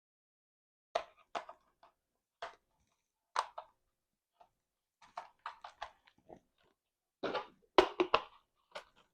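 Irregular plastic clicks and knocks from handling a Nerf Pro Gelfire toy blaster. They come one at a time at first, then in quicker clusters in the second half, the loudest near the end.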